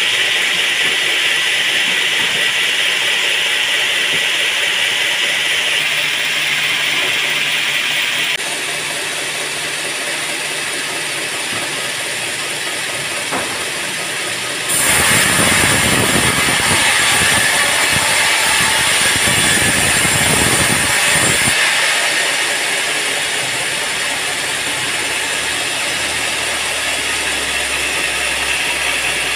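Sawmill band saw running and sawing through a teak log: a steady mechanical noise that changes character a few times, with a louder, rougher stretch of about seven seconds in the middle.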